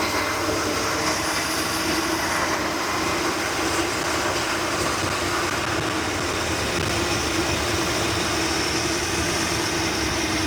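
Chevrolet 454 big-block V8 of an old motorhome idling steadily.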